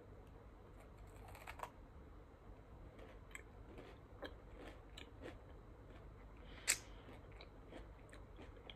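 Faint chewing of a Lindor white chocolate truffle: small wet mouth clicks and smacks, with one sharper click about two-thirds of the way through.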